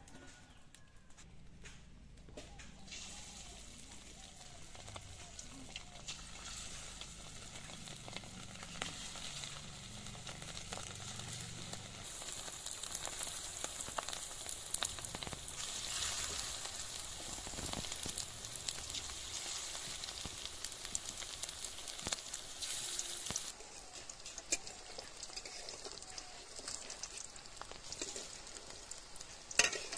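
Hot oil sizzling and crackling in a steel kadai as spice-coated rohu fish pieces deep-fry. The sizzle builds after a few seconds, is loudest in the middle, and eases somewhat in the last quarter.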